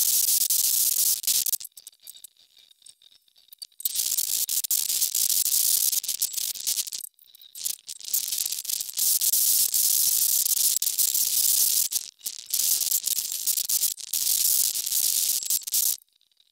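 Small hand-held DC motor with an abrasive disc grinding a strip of steel: a loud, harsh hiss that stops and starts again several times, with breaks about two seconds in, around seven and twelve seconds, and near the end.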